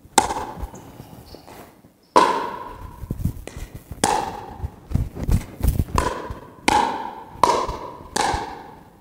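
Pickleball rally: solid paddles striking the plastic ball and the ball bouncing on a hard gym floor. About eight sharp, hollow pops come roughly a second apart, each ringing briefly and echoing in a large hall.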